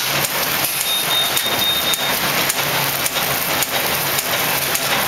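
Automatic cold-cut T-shirt bag making machine running: a steady mechanical hiss with regular clicks about two to three a second from its cycling head. A brief high whine comes in about a second in.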